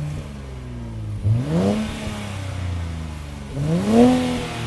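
Nissan Z's twin-turbocharged 3-litre V6 revving. Its pitch sweeps sharply up twice, about a second in and again near the end, and holds steady in between.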